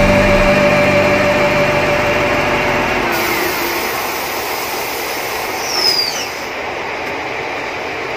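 SDLG wheel loader's diesel engine running steadily, with a brief high squeak about six seconds in.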